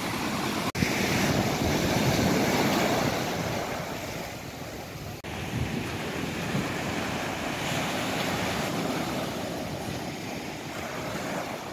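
Sea surf breaking and washing up a sandy beach, with wind on the microphone. The sound is a steady wash, a little louder in the first few seconds, and it drops out for a moment twice, about a second in and about halfway through.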